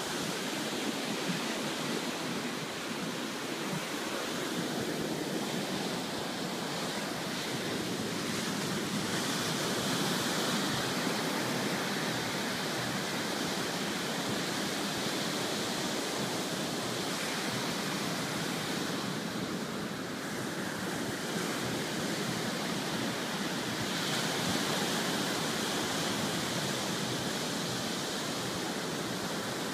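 Ocean surf breaking and washing up the beach, a steady rush that swells a little as larger waves come in.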